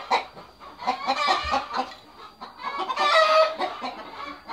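Chickens clucking in a series of short calls, loudest about three seconds in.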